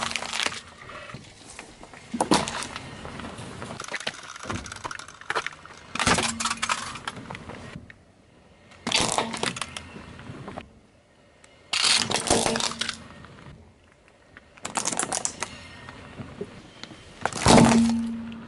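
A car tyre rolling over and crushing small objects one after another, among them a toy airliner and a round hairbrush: repeated loud bursts of cracking and crunching, about every two to three seconds.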